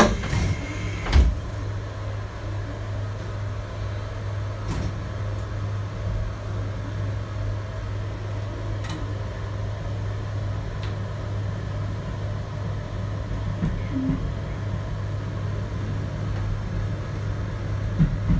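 JR Hokkaido 721 series electric train running, heard from inside the car: a steady low hum under rolling noise. There is a sharp knock about a second in and a few fainter clicks later.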